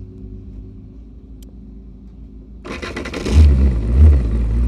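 Single-seater race car's engine being restarted. About three seconds in, the starter cranks briefly and the engine catches. It is blipped twice, then settles into a steady idle.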